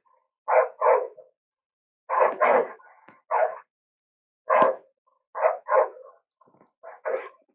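Cartoon hyena sound effects: short yelping barks, mostly in quick pairs, in about six groups with short silences between them.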